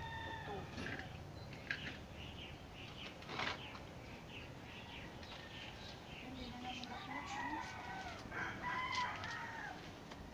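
A rooster crowing: a long, pitched call in the later part, with short high chirps before it. A sharp knock comes at about three and a half seconds.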